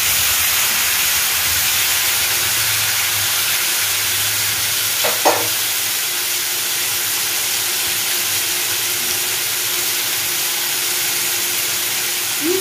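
Potato pieces frying in oil in a kadai, sizzling and hissing steadily with water just added to the hot pan. A short knock about five seconds in.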